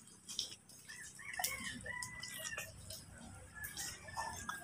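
A chicken calling faintly, in drawn-out pitched calls, with a few soft knocks.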